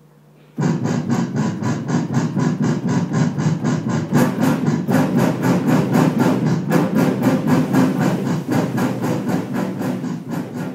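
New-music ensemble playing loud, rapid repeated pulsed chords, about five a second, that start abruptly about half a second in and fade a little near the end.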